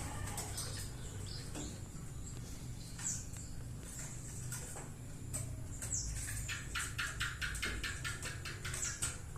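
Wambi bird giving short, high, downward-sweeping chirps every few seconds, with a quick run of about five ticking notes a second about two-thirds of the way in.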